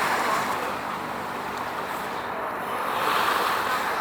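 Steady outdoor rushing noise that swells near the start and again about three seconds in.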